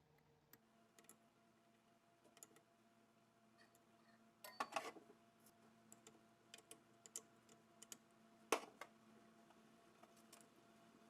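Faint, scattered clicks and knocks of hard objects being handled, with a cluster about four and a half seconds in and one sharp knock about eight and a half seconds in, over a faint steady hum.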